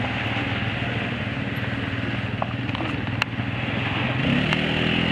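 An off-road vehicle's engine running steadily, then revving higher about four seconds in. A few sharp clicks sound over it.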